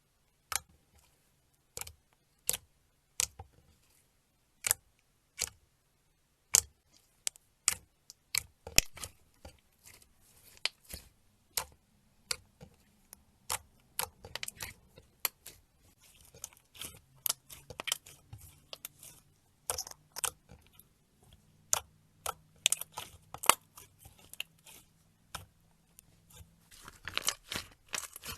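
Slime being handled, giving sharp clicks and pops: single clicks spaced apart at first, growing denser, and turning into a quick crackle near the end.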